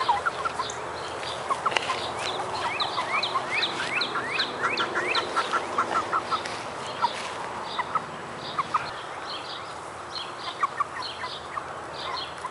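A hen clucking and making quick, short rising chirps, thickest in the middle, with scattered sharp taps as she pecks at the ground and at clog-covered toes.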